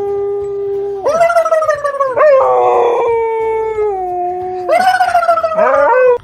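A husky-type dog howling in long, drawn-out notes, each sliding up at its start and then sagging slowly in pitch, several howls running one into the next. The howling cuts off suddenly near the end.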